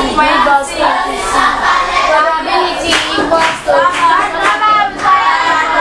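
A class of children singing together in chorus, with hand clapping.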